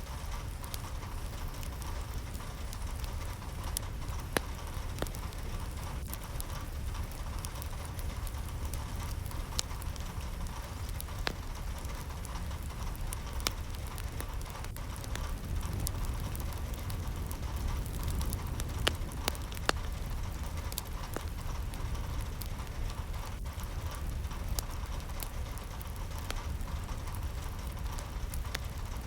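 Steady rain, a continuous hiss over a low rumble, with many scattered single drops ticking sharply on a hard surface.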